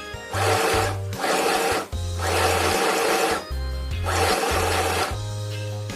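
Sew Simple 12-stitch mini electric sewing machine stitching in four short runs, each about a second long, its small motor and needle mechanism starting and stopping between runs, over background music.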